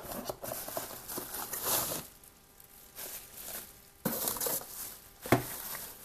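Unboxing handling noise: a cardboard box being opened and a bubble-wrapped kettle and base pulled out, with rustling and scraping of cardboard and plastic wrap, a quieter lull in the middle, and a single knock about five seconds in.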